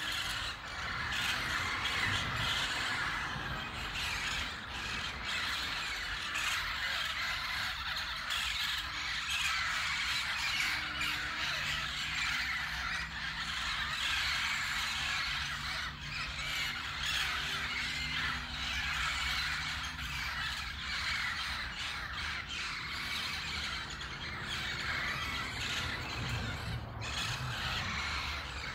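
A large flock of parakeets in a tree, screeching and chattering all together in a steady, unbroken din.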